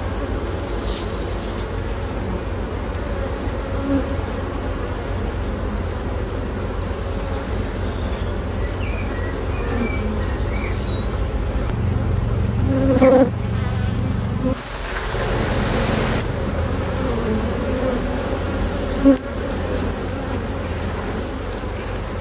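A honeybee colony buzzing steadily around an opened hive, a dense low hum, with a couple of sharp knocks about 13 and 19 seconds in.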